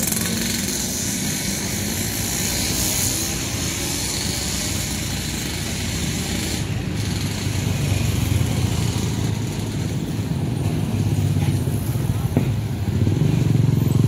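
Road traffic driving over a level crossing: motorcycles and cars passing close, their engine rumble swelling about eight seconds in and again near the end.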